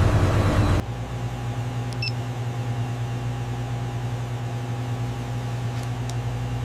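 A loud, noisy engine-like running sound that cuts off abruptly about a second in, leaving a steady low machine hum with a few faint clicks.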